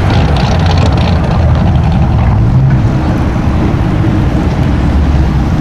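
A car engine running loud and steady, with a deep low rumble.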